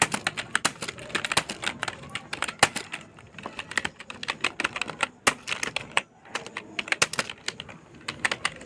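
Fast typing on a computer keyboard during a timed typing speed test: rapid, irregular key clicks, with a brief pause about six seconds in.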